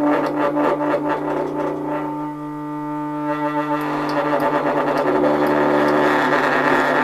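Music: distorted, guitar-like sustained tones over a steady low drone, changing chords about halfway through.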